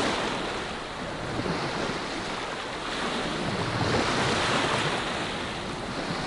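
Small sea waves washing over a shingle shore at a river mouth, an even rush of water over pebbles that swells a little in the middle, with wind on the microphone.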